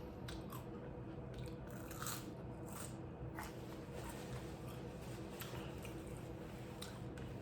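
A person chewing a pizza puff cheeseburger close to the microphone: irregular soft wet smacks and crunches, a few a second.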